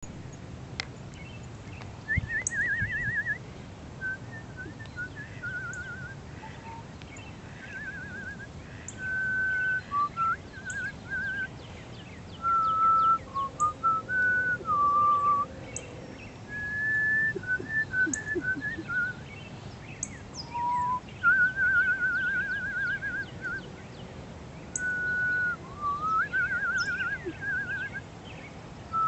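A woman whistling cardinal-style phrases to call the birds: trilled runs and held, sliding notes, repeated with short pauses. Faint, sharp, high bird chips sound between the phrases.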